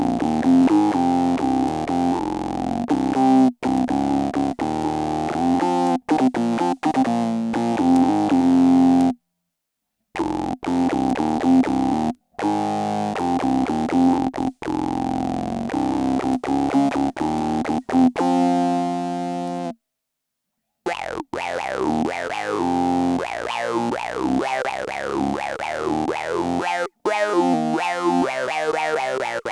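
Electric bass played through an Electro-Harmonix Bass Mono Synth pedal, recorded direct, giving synthesizer-like bass notes and riffs. The phrases are split by two brief dead-silent gaps. In the last part the notes carry quick falling pitch sweeps.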